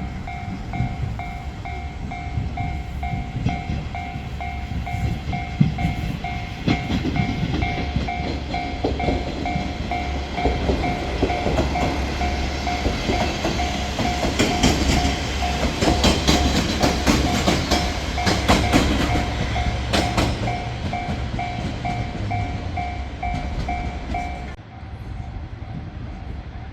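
Japanese level-crossing alarm ringing in a steady pulsing two-tone pattern while a train rumbles past, its wheels clacking over the rail joints for several seconds in the middle. The alarm cuts off suddenly near the end, the sign that the crossing is clearing.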